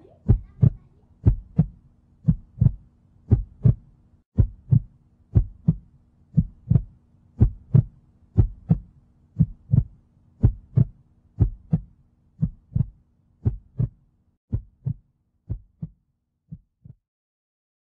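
Heartbeat sound effect: a steady double thump, about one beat a second, over a faint low hum. The beats grow fainter near the end and then stop.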